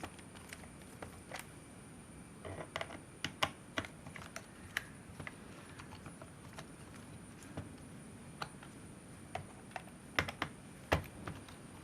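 Irregular light clicks and taps of small hard parts being handled, coming in clusters about two and a half seconds in and again near the end, over a faint steady high-pitched whine.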